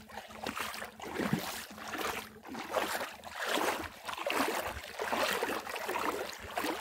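Rustling footsteps through grass, an uneven swish about once or twice a second, as someone walks at the water's edge.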